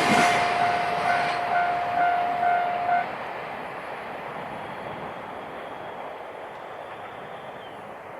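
A freight train rolling away past a level crossing, its noise fading. The crossing's warning bell rings in a steady pulse about twice a second and stops about three seconds in, as the train clears the crossing.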